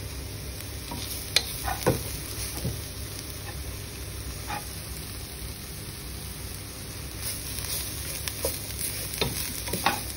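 A wooden spatula stirring chopped banana stem in a pan, scraping through the mash and now and then clicking against the pan's rim, over a steady sizzle of the banana stem cooking on low heat. It is nearly cooked.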